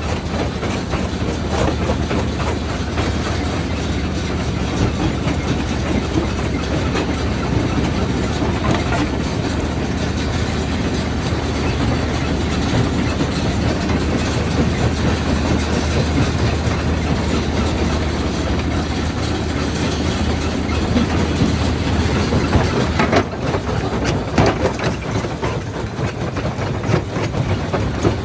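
Quarry primary jaw crusher running: a steady low drone under continuous clattering and cracking of rock being crushed, with louder, sharper knocks in the last few seconds.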